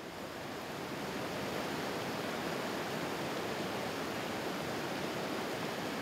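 Steady rushing of a creek pouring over a low rock ledge in small falls, fading in over about the first second.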